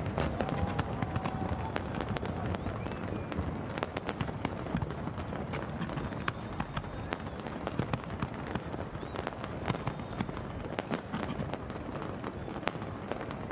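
Fireworks going off in a dense, continuous barrage: many sharp cracks and bangs close together, over a steady low din.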